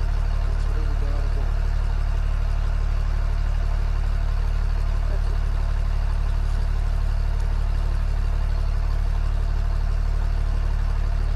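An engine idling steadily, a constant low drone that does not change.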